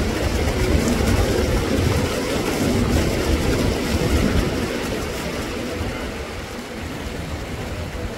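Steady rush of water flowing through concrete fish-farm raceways, with a heavy, uneven low rumble underneath; it eases a little after about five seconds.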